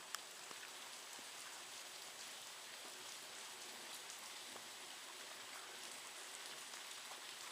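Steady rain falling and pattering on surfaces, with scattered drip ticks and one sharp tick just after the start.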